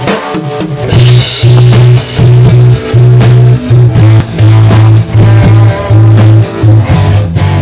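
Rock band playing live: electric guitars, bass guitar and drum kit. About a second in the full band comes in hard with a heavy low riff in loud pulses about twice a second.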